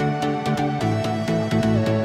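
Electronic background music with a steady beat and held chords.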